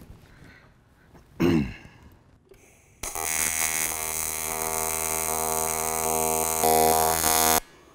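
AC TIG welding arc on aluminium, buzzing steadily for about four and a half seconds. It starts abruptly about three seconds in and cuts off just before the end.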